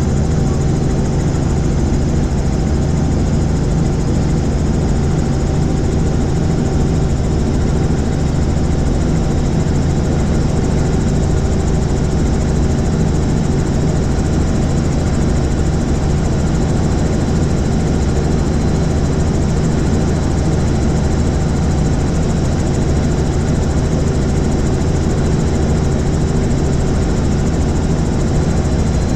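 Helicopter in level flight: a steady, unvarying drone of engine and rotor with a deep hum.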